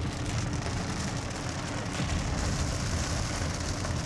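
Steady rain pattering on a car, with a low vehicle rumble underneath.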